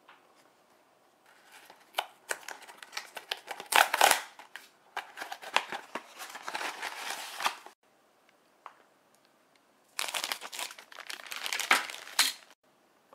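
A small cardboard toy-candy box being torn open and handled, with rustling and tearing over several seconds. After a short pause, a second spell of crinkling as the clear plastic wrapper around a blue plastic parts sprue is handled.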